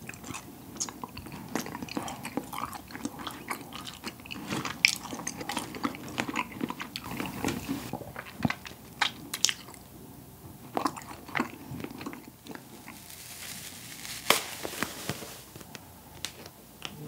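Close-miked eating of cotton candy: chewing with many short wet clicks and crackles from the mouth. Near the end comes a soft rustle as the spun-sugar slice is pulled apart by hand.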